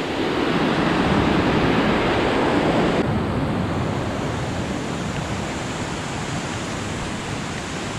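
Rushing white water of the Río Olivia rapids, a loud, continuous roar of fast current. About three seconds in the sound changes abruptly to a steadier, slightly quieter rushing hiss.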